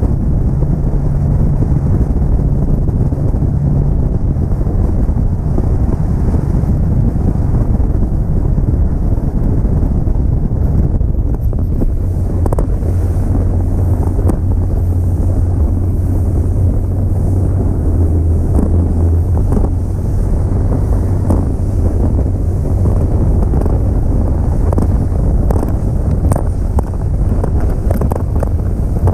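Wind buffeting a bow-mounted GoPro's microphone as a bass boat runs at speed across rough, wake-chopped water, over the steady low drone of its outboard motor. About twelve seconds in the drone settles lower and short knocks from the hull hitting the chop begin.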